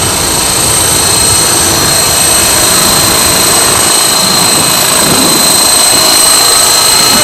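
Hausler 450 radio-controlled helicopter, a T-Rex 450 clone, hovering low: its electric motor and gears give a steady high-pitched whine over the rush of the spinning rotor blades.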